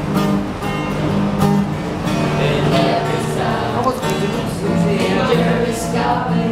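Acoustic guitar strummed in steady chords. Partway through, a group of voices starts singing along with it.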